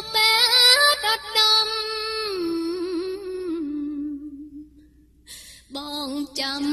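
A woman singing a Khmer song, drawing out one long wavering phrase with the drums and bass dropped out. The line slides down and fades almost to quiet about four to five seconds in, then she starts a new phrase.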